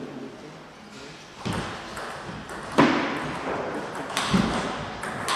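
Table tennis rally: the ball clicks sharply off rubber-faced bats and the table about every second, the loudest hit about three seconds in, each click echoing briefly in a large sports hall.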